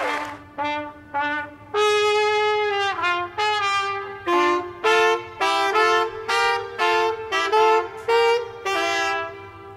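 Trumpet playing a phrase of separate notes: two short ones, a longer held note about two seconds in, then a quicker run of notes at about two to three a second.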